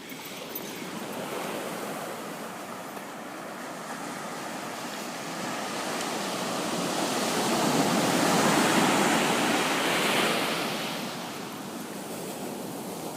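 Ocean surf: waves rushing and breaking, one wave swelling to its loudest about eight seconds in and washing back, with some wind on the microphone.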